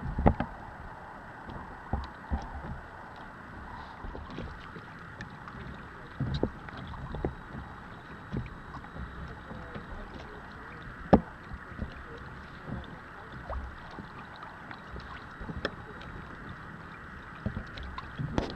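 A sailing kayak moving through choppy water: a steady wash of water against the hull, with scattered short knocks and slaps. The sharpest knock comes about eleven seconds in.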